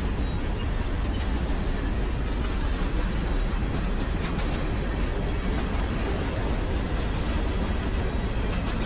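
Freight train rolling past: a steady rumble of wheels on rails, with no horn sounding.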